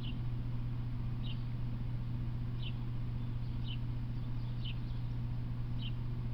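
A small bird's short high chirp, repeated about once a second, over a steady low hum.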